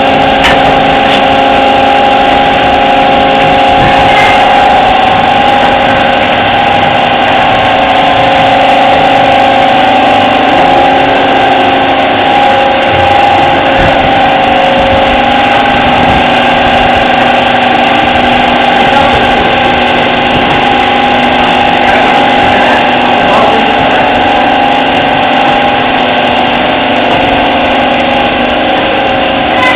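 Multi-track automatic form-fill-seal pouch packing machine running: a loud, steady mechanical drone with several constant tones, unchanged throughout.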